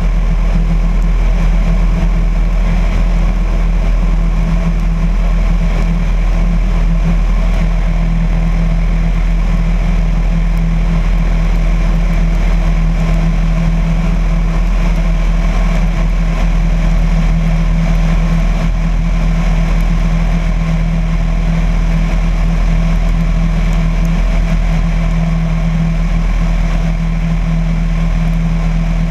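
Piper Cherokee's single piston engine and propeller droning steadily in flight, heard from a camera mounted on the tail.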